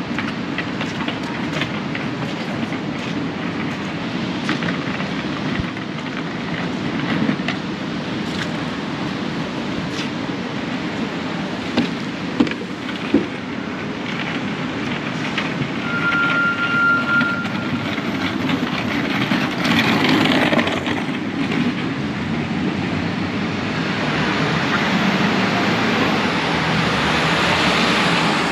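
Busy city street ambience: steady traffic noise with vehicles passing, a few sharp knocks about twelve seconds in, and a short steady beep a little later.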